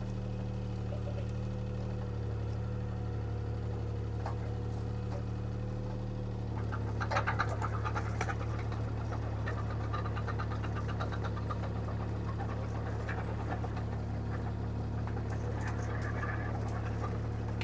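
Bobcat T300 compact track loader's diesel engine running steadily. About six and a half seconds in its note changes and clattering and rattling starts, continuing to the end as the machine works.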